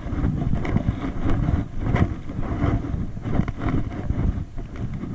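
Wind buffeting the microphone, a low rumble that swells and fades unevenly, with scattered short knocks through it.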